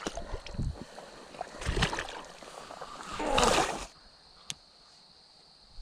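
Wading steps through mud and shallow creek water, with low thuds and splashing; the loudest is a brief splash a little after three seconds in, then it goes quiet apart from a single click.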